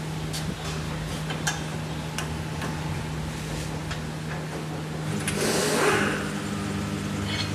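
Tyre-changing machinery at work as a tyre is demounted from its alloy rim: a steady motor hum with scattered light clicks and taps, and about a second of compressed-air hiss a little after five seconds in.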